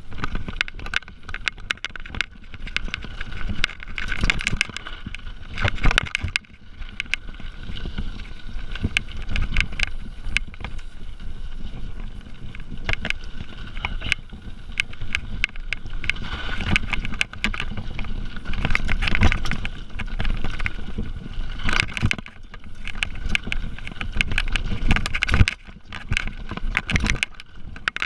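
Mountain bike riding fast down a rough dirt trail: tyres rolling and crunching over dirt and stones, with the bike rattling and clicking over bumps and a low rumble throughout.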